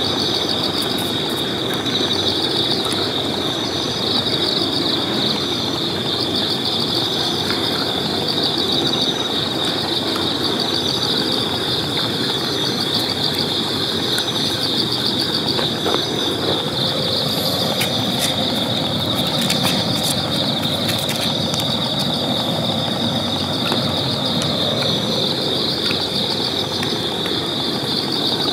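Steady chorus of night insects, a dense continuous trill, with a fainter higher chirp repeating about every second and a half. A low, steady rumble runs beneath it.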